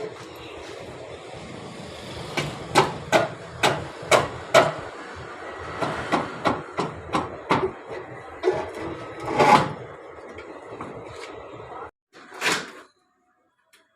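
A run of irregular sharp knocks and clatter over a steady background hiss, several a second at times. The loudest knock comes about nine and a half seconds in, and a short separate bang follows about three seconds later.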